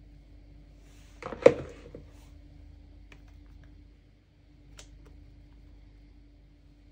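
A spatula knocking and clattering against a plastic mixing bowl while scooping whipped egg whites, one short cluster of knocks about a second and a half in, then a couple of light taps. A faint steady hum lies underneath.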